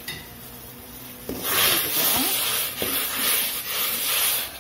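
Steel ladle stirring and scraping around a steel kadai of boiling water with vegetables. The stirring starts about a second in and brings a loud, uneven hiss as the liquid sloshes across the hot pan.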